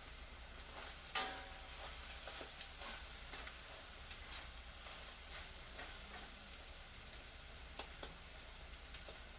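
Kitchen activity: utensils and dishes clinking and knocking over a steady hiss, with one loud ringing clink about a second in and lighter knocks scattered throughout.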